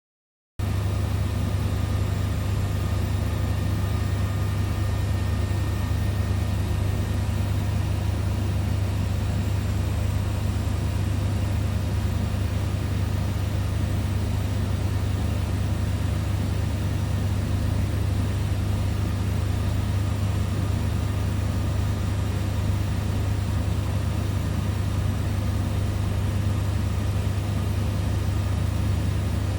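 Laser floating zone furnace setup running: a steady low hum with faint steady higher tones, starting about half a second in.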